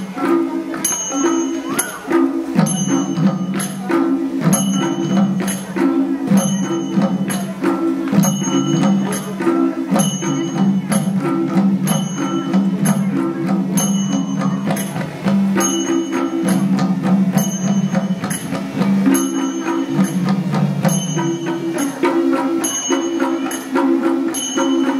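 Traditional Nepali music from a large ensemble of madal drums played in unison, with cymbal-like strikes keeping a steady beat about one and a half times a second and a sustained melody line moving in step.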